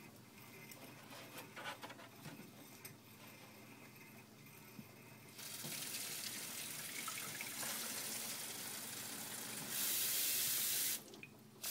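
A few light handling clicks, then about five seconds in water starts running steadily into a container being filled to one liter. The flow gets louder for about a second near the end, then cuts off suddenly.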